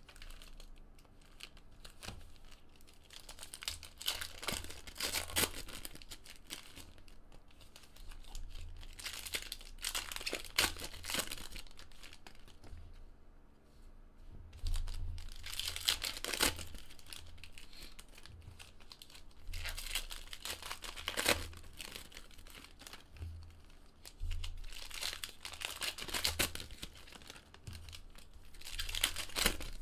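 Foil trading-card packs (Panini Prizm basketball) being torn open and crumpled one after another, in bursts of crinkling about every five seconds.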